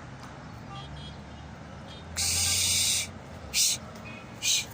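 Three hissing sounds: one lasting nearly a second, then two brief ones.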